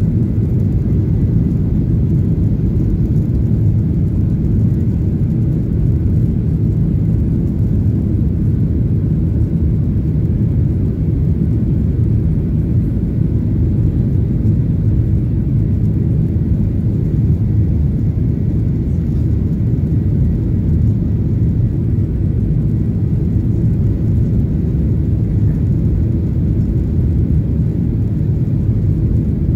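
Steady low rumble of a jet airliner heard from inside the passenger cabin: engine and airflow noise.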